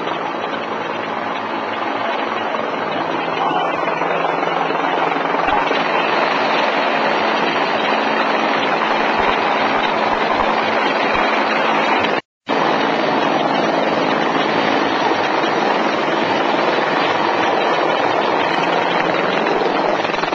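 Helicopter hovering overhead: a loud, steady rotor and engine noise. It cuts out for a split second about twelve seconds in.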